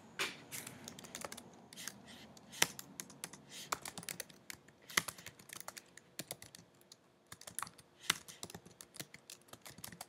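Typing on a computer keyboard: a run of irregular keystroke clicks, with a brief pause partway through.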